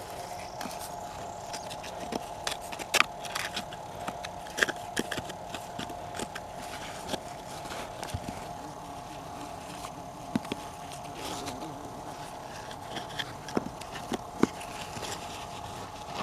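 Scattered clicks, knocks and scrapes of rock and mica being dug and handled by hand, the sharpest about 3 seconds in, over a steady buzzing hum.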